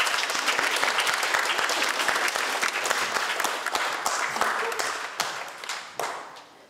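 A group of people applauding: dense hand clapping that holds steady, then thins and fades out over the last two seconds or so.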